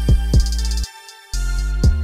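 Background music with a heavy bass line and a kick drum. The bass and drums drop out for about half a second near the middle.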